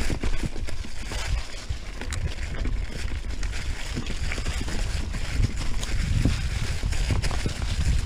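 Mountain bike riding downhill over a dry leaf-covered dirt trail: tyres rolling through the leaves and the bike rattling with irregular clicks and knocks over bumps, with wind rumbling on the camera's microphone.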